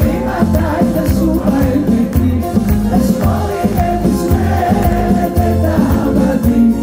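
Live band music played loud over a PA, with a woman singing lead into a microphone over a heavy, steady bass line, recorded from the audience.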